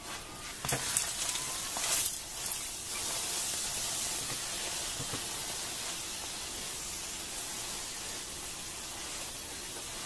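Oil sizzling steadily in a hot pan, as in frying, with a few sharp knocks and clatters in the first three seconds.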